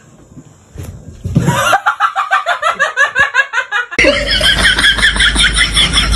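A person laughing hard, a fast run of repeated ha-ha sounds starting a little over a second in. After a cut about four seconds in, more laughter goes on over a low hum.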